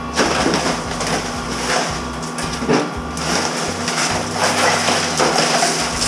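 Thin sheet-metal vent pipe crunching, scraping and rattling as it is pulled apart and handled, with many sharp crackles and knocks.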